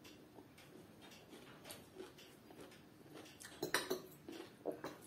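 Faint, light clinks of a metal serving spoon against a glass dish, with a quick cluster of clicks about three and a half seconds in.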